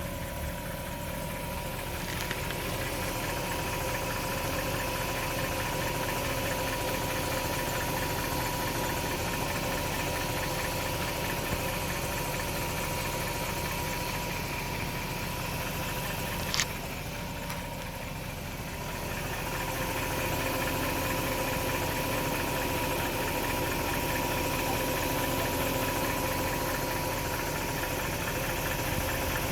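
BMW E39 540i's 4.4-litre V8 idling steadily, with a steady whine held on two pitches over the engine note: the strange noise the owner is showing. A single sharp click about halfway through.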